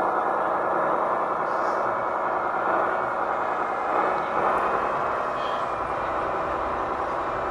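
Radio-controlled scale model trucks driving, giving a steady whirring running noise.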